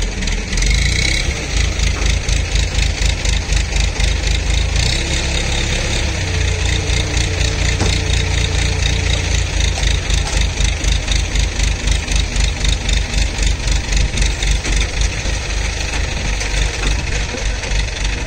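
A crane's diesel engine running steadily under the load of hoisting a tractor, with an even pulse of about four beats a second.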